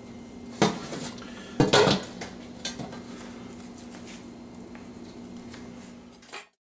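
A metal roasting pan and its wire rack clattering as a raw turkey is shifted in it to drain the juice: two sharp clanks in the first two seconds, a lighter one after, then a few faint ticks over a steady low hum, cutting off suddenly near the end.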